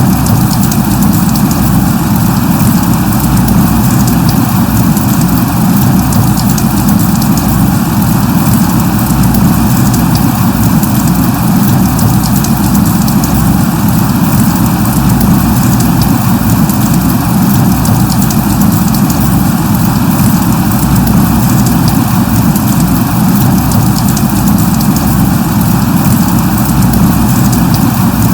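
Light rain (drizzle) falling steadily: a constant, even hiss with fine ticks of individual drops, unchanging throughout.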